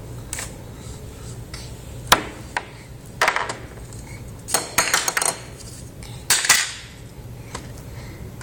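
Play cookware and utensils clattering and knocking as a child pretends to cook: a single sharp knock about two seconds in, then three short bursts of clatter.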